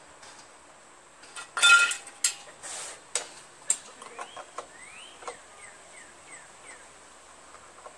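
Metal clinks and a short rattling clatter of tools and parts being handled at a small-engine carburetor, loudest about two seconds in, followed by scattered ticks. Small birds chirp now and then with short sliding calls.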